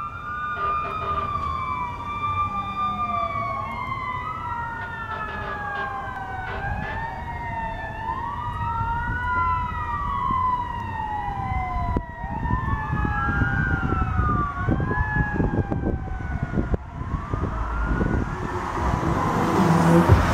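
Fire truck sirens: a Federal Q2B mechanical siren winds down in one long, slowly falling tone while an electronic siren wails, rising and falling about every three seconds. A louder rushing noise builds near the end.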